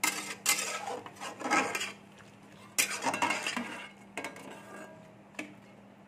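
Steel spatula scraping and knocking against a metal kadai as wet cabbage, potato and chickpeas are stirred, in about half a dozen short strokes with brief pauses between.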